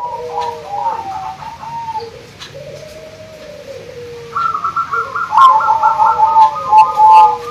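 Several zebra doves (perkutut) cooing in overlapping phrases of short repeated notes. The calls grow louder and busier about four seconds in.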